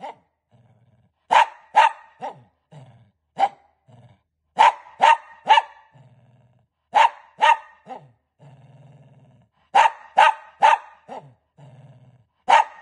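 A Shih Tzu barking in short sharp bursts of two to four barks, with low growls in the gaps between the bursts.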